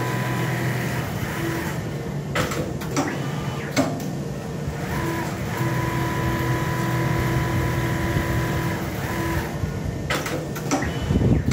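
Machinery running in a workshop: a steady motor hum that stops for a few seconds and then starts again, with a few sharp clicks and knocks around the middle and near the end.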